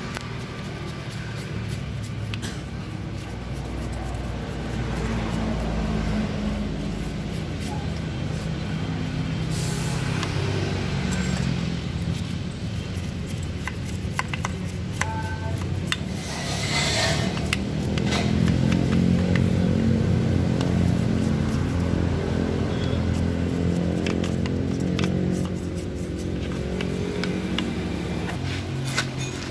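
A small brush scrubbing the grimy case of a motorcycle engine, with short scratchy strokes. Under it runs a steady low drone of several pitches that rises and swells about two-thirds of the way in.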